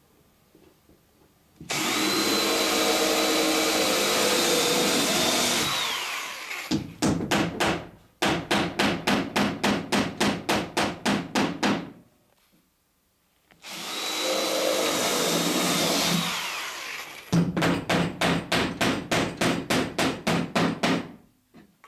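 Power drill boring nail holes through the planking into a rib, its whine steady for about four seconds and dropping in pitch as it stops. Each drilling is followed by a run of quick, light hammer taps, about five a second, driving a copper nail home. The pair happens twice.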